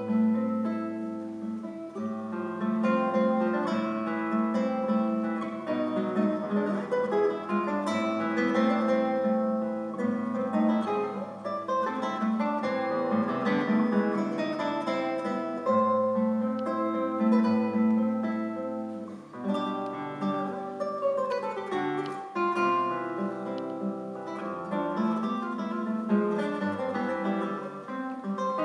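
Solo classical guitar played fingerstyle: a continuous flow of plucked notes and chords, with a quick descending run about two-thirds of the way through.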